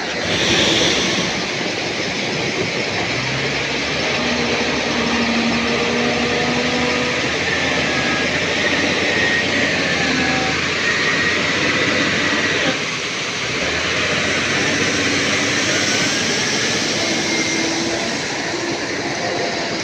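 Heavy earthmoving machine working: a steady, loud mechanical din with shifting squeal-like tones over it.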